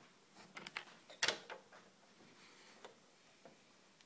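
Faint clicks and creaks of handling as a cartridge of construction silicone is brought over a TV's LED backlight strip, with one louder, longer click a little over a second in.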